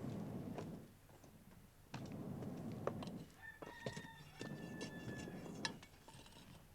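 A rooster crows once, a single long call of about two seconds in the middle, over scattered sharp clicks and knocks.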